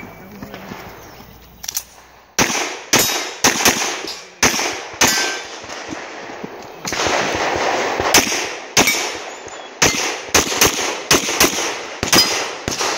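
A string of rapid semi-automatic pistol shots, fired in quick pairs and strings, with the metallic clang of hit steel targets among them.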